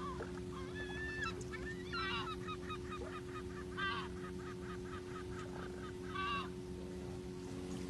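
Birds calling in a string of short, pitched cries, with a quick run of repeated notes about four to five seconds in, over a steady low hum.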